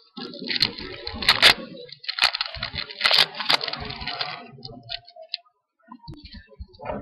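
Trading cards being handled and flipped through, in a run of rustles and sharp little snaps and clicks. The handling stops briefly about five seconds in, then starts again.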